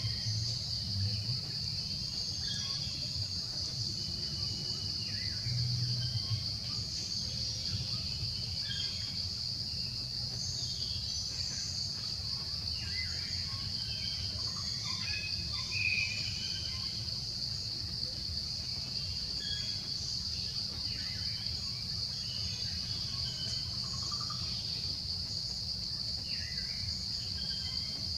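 Tropical insects droning steadily on one high pitch, with scattered short chirps and a low hum underneath.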